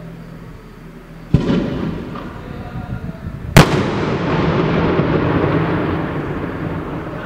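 Ramadan cannon firing: a sharp bang about a second in, then a much louder blast a couple of seconds later, followed by a long rolling echo that slowly dies away.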